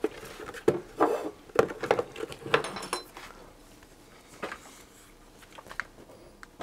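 Metal case of a Simpson 461-2 digital multimeter knocking and clicking as it is handled and set down on a wooden workbench: a quick run of knocks over the first three seconds, then a single click about four and a half seconds in.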